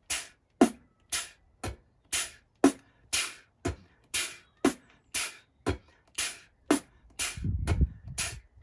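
Mouth-made beatbox groove at a slow, steady pace of about two hits a second, with a trashy, hissing cymbal-stack sound made by pushing air through clenched teeth in place of the hi-hat. A low rumble joins near the end.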